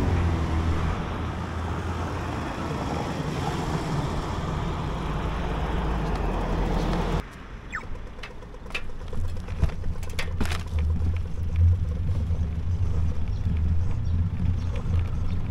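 Outdoor road noise with traffic passing and wind rushing over the microphone. About seven seconds in it cuts off abruptly to a quieter low rumble with scattered clicks.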